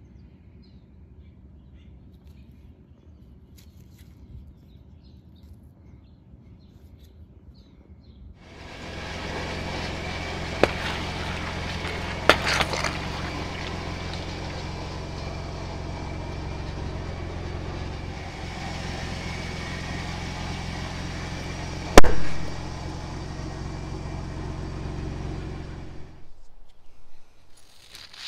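Vehicle on big 37x13.50R17 off-road tyres running and rolling slowly over objects on concrete, its engine a steady low hum under a loud rumble; a few sharp cracks sound as things are crushed, and one very loud crack comes about two-thirds through. Before and after the drive only faint outdoor ticks and chirps are heard.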